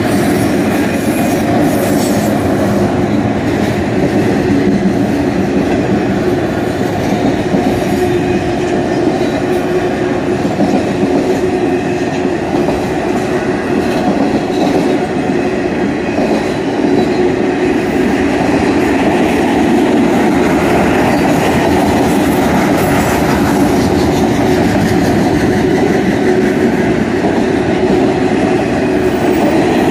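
Autorack freight cars rolling past at close range: a loud, steady rumble of steel wheels on the rails.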